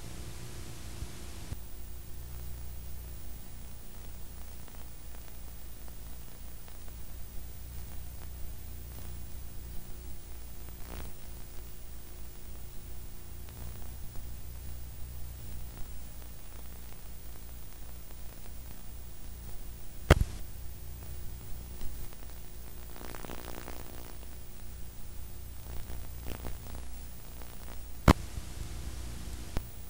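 Steady hiss and low electrical hum from the blank end of a videotape playing with no recorded sound. Two sharp clicks come through, about two-thirds of the way in and again near the end.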